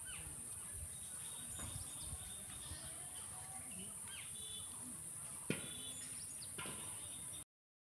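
Rural field ambience: small birds chirping in short calls over a steady high hiss, with a single sharp click about five and a half seconds in. The sound cuts out abruptly near the end.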